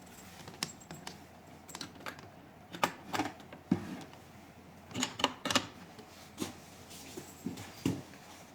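Irregular sharp clicks and light knocks, about a dozen spread across several seconds, as a body RF handle's cable connector is handled and plugged into the machine's socket.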